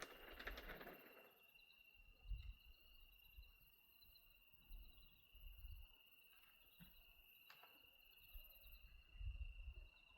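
Near silence: a faint steady high-pitched tone, with a brief soft crackle at the start and a few soft low thumps.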